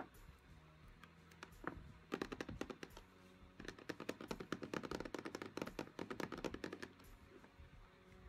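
Fingertips and nails tapping rapidly on a shrink-wrapped cardboard Kihno album box. A few single taps come first, then a short run of quick taps about two seconds in and a longer run from about three and a half to seven seconds.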